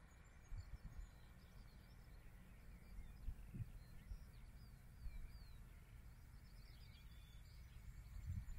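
Near silence outdoors: a faint low wind rumble on the microphone, with a few faint, quick, falling bird chirps about halfway through.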